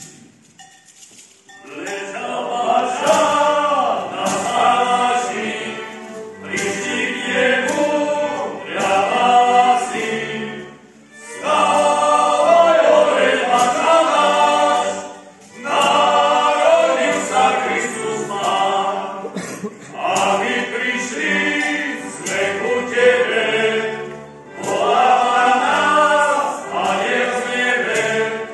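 A group of carolers singing a Christmas carol in Slovak, in phrases of about four to five seconds with short breaks between. The singing begins about a second and a half in.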